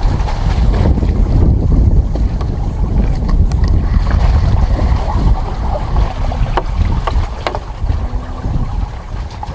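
Wind buffeting the microphone, a loud, gusting low rumble, with a few faint clicks in the second half.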